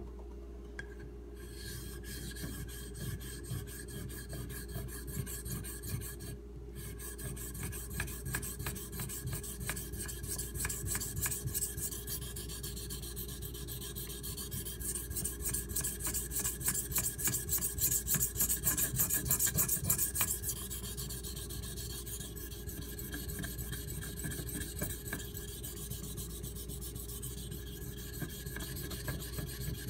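A CPM 3V steel knife blade being stroked rapidly back and forth on a Shapton Pro whetstone, a steady gritty scraping. It breaks off briefly about six seconds in and grows louder for several seconds past the middle.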